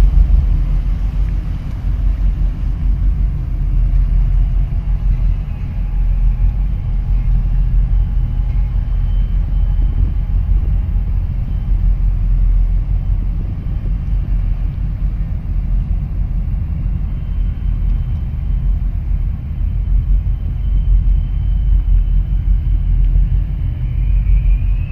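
Steady low engine rumble heard from aboard a moving boat.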